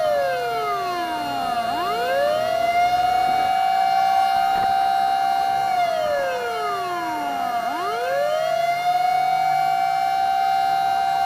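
Fire truck sirens: one holds a steady tone while another wails, falling slowly to a low pitch and sweeping back up, twice.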